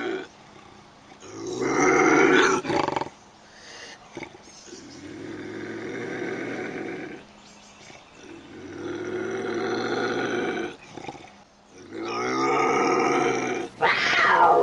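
Bobcat calling: a series of about five drawn-out, wavering yowls with short gaps between them. The loudest come about two seconds in and near the end, and the last sweeps down in pitch.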